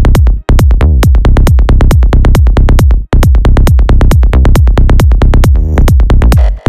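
Electronic dance music with a fast, steady drum-machine beat, cutting out for an instant twice.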